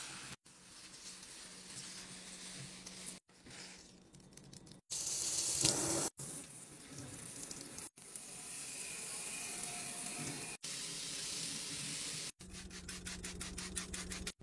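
Cleaning a glass shelf in a run of short cuts: a sponge rubbing over the soapy glass, then tap water running over the shelf as it is rinsed, loudest for about a second some five seconds in. Near the end, a fast, even rhythm of short scrubbing strokes.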